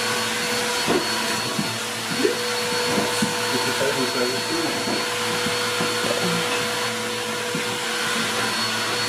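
Steady mechanical drone: an even hiss with a low hum and several steady tones under it, from a running motor-driven machine, with faint short sounds over it.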